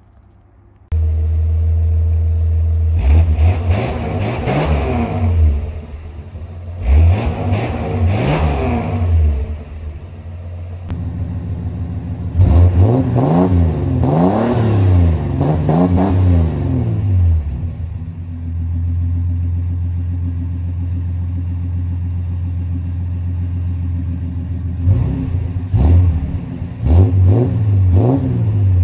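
Ford EB Fairmont's engine idling and being revved through its newly fitted 2.5-inch exhaust, heard at the tailpipe. The idle comes in suddenly about a second in, and the revs rise and fall: two single revs, a run of about four quick revs in the middle, a steady idle, then a few short blips near the end.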